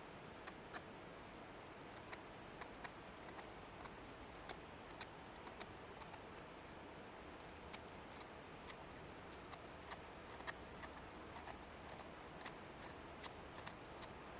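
Wood fire crackling softly: sharp, irregular pops and ticks, one or two a second, over a faint steady hiss.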